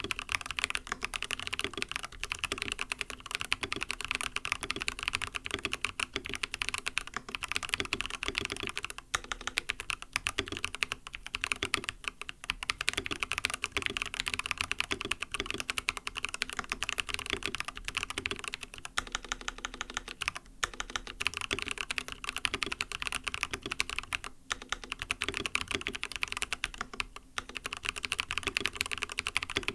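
Fast, continuous typing on an mStone Groove T mechanical keyboard with lubed 45 g MMD Coral switches and silicone plate foam, broken by a few short pauses.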